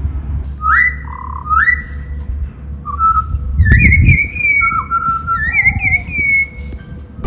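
A bird whistling clear notes: two rising whistles, then from about three seconds in a quicker run of slurred, looping whistled notes that carries on until near the end.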